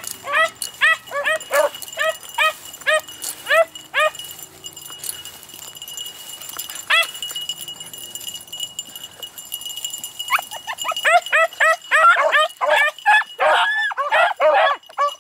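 Beagles baying in short, yelping calls, two or three a second. The calls thin to a lull with a single bay midway, then several dogs give voice together in a dense, overlapping run near the end.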